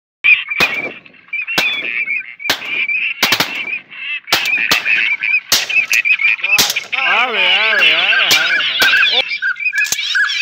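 Shotgun shots, over a dozen, fired in quick uneven succession at ducks flying overhead, over continuous calling of waterfowl. A long pitched call that wavers up and down runs from about six to nine seconds in.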